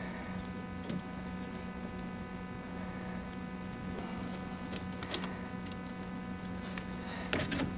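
A few faint clicks and light rustling as hands feel through golf-cart battery cables and wiring, over a steady background hum.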